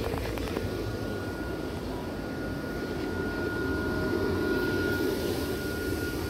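Steady mechanical drone with a low hum and a thin, steady high whine over it, swelling slightly about four seconds in.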